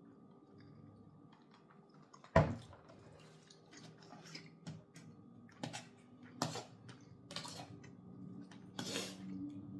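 Close-miked eating and food-handling sounds: scattered clicks, smacks and rustles of biting and chewing fried-style chicken drumsticks. There is a sharp knock about two and a half seconds in, over a faint steady hum.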